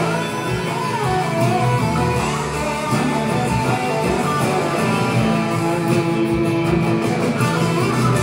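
Live band playing an instrumental passage between sung lines, with guitar to the fore over a bass line and a steady beat.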